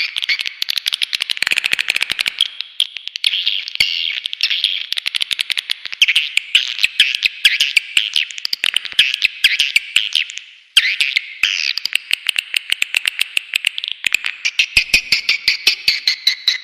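Swiftlet calls from a swiftlet-farm call track used to draw swiftlets to a nesting house: a dense, loud chatter of rapid high chirps and clicks. It breaks off briefly about 11 seconds in, then goes on as a more even run of quick pulses.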